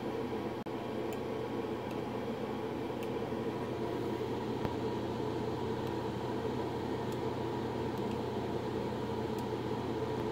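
Cooling blower of an 8877 (3CX1500) valve RF amplifier running steadily, with a low hum under it.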